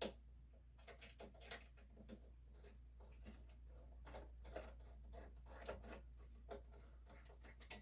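Faint, irregular clicks and light scrapes of metal hardware being handled while a CPU heatsink is fitted onto its mounting.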